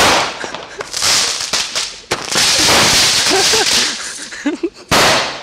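Roman candles firing: a series of loud, sudden blasts, each trailing into a long hiss. The last one starts sharply about five seconds in.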